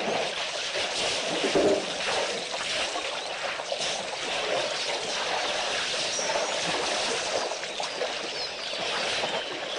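Water splashing and trickling as African elephants drink at a waterhole, dipping their trunks into the water; a steady wash of sound with no single sharp event.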